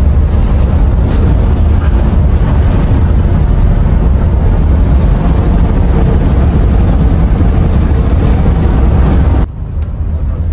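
Steady, loud rumble of a moving diesel bus's engine and tyres, heard from inside the cabin. About nine and a half seconds in it drops suddenly to a lower level.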